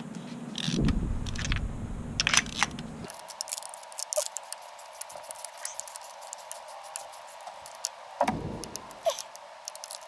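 Ratchet and socket extension loosening and spinning out a spark plug from the Toyota Camry's 2.4L four-cylinder head: a run of quick metallic ratchet clicks and tool clatter, with two short stretches of low rumble.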